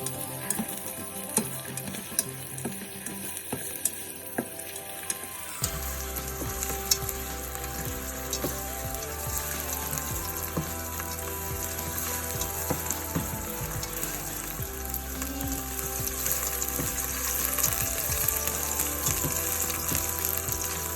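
Onion sautéing in hot oil in a cooking pot, sizzling steadily, with a utensil clicking and scraping against the pot as it is stirred. The sizzle gets louder about six seconds in.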